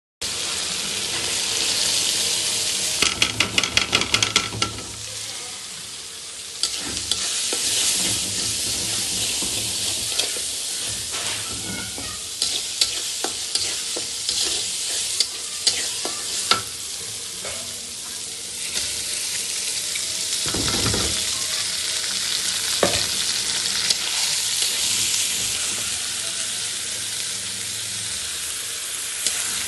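Food sizzling as it fries in a pan, a steady hiss, with a utensil stirring and scraping in the pan. About three seconds in comes a quick run of sharp clicks, and past the middle a heavier knock.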